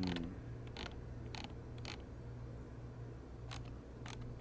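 Scattered single clicks from a computer's mouse and keyboard, about six spread unevenly over four seconds, over a low steady hum.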